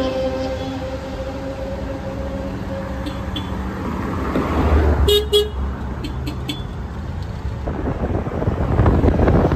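Small Japanese kei vans and cars driving past close by one after another, their engine and tyre noise swelling as each goes by. A short horn toot sounds about five seconds in.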